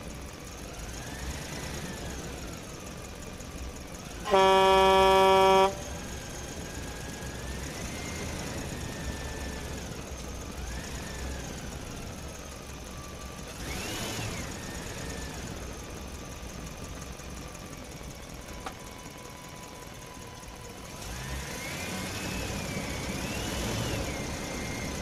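Toy tanker truck moved over sand and gravel, with a faint whine that rises and falls in pitch as it goes. A loud horn toots once about four seconds in, held for about a second and a half.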